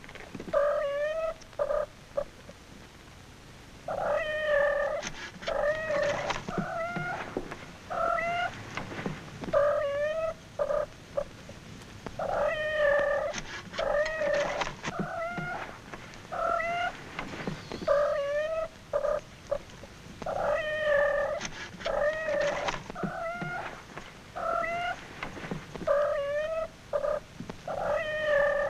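A cat meowing over and over, in runs of short rising-and-falling meows separated by brief pauses.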